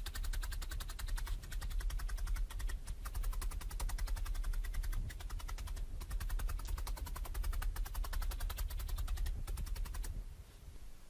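Felting needle stabbing rapidly and repeatedly through wool roving into a dense foam mat, a fast run of sharp clicks from sped-up footage, stopping about ten seconds in.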